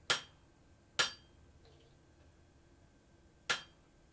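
Three ringing hammer blows on a grooved forging tool, an old flatter, setting down hot leaf-spring steel: two about a second apart near the start, then a third after a pause of over two seconds.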